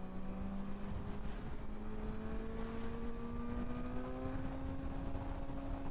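Suzuki GSX-R sportbike's inline-four engine pulling steadily at highway speed, its pitch climbing slowly as the bike gains speed, over a steady low wind and road rumble.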